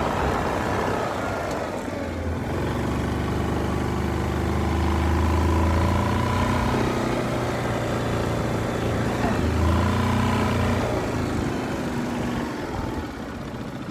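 Yamaha Grizzly 700 ATV engine, a 686 cc single-cylinder four-stroke, running steadily at idle while it warms up after the fuel pump's sock filter was replaced. Its note swells and eases a few times.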